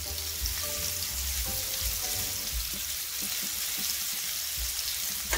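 Flour-coated beef meatballs sizzling steadily as they sear in hot olive oil in a frying pan over high heat.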